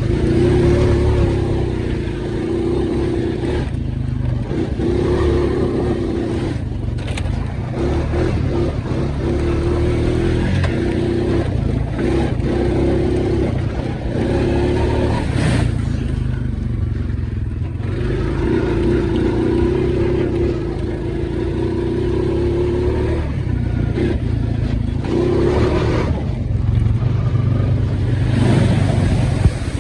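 ATV engine running under load on a muddy trail, the throttle opened and eased off repeatedly, with the engine note rising on acceleration several times.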